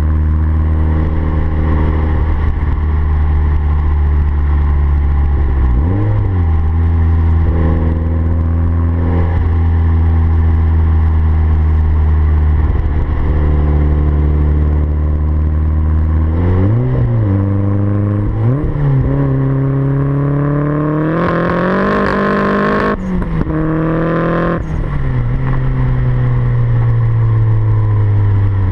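Turbocharged Renault F7R 16-valve four-cylinder engine with a 3-inch exhaust, idling steadily and blipped a few times, then revved in a longer climb that cuts off sharply, before dropping back to idle.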